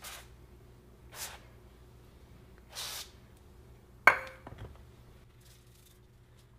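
Aerosol can of duck fat cooking spray squirted onto raw chicken in three short hissing bursts, then the metal can set down on the countertop with a sharp, briefly ringing knock about four seconds in.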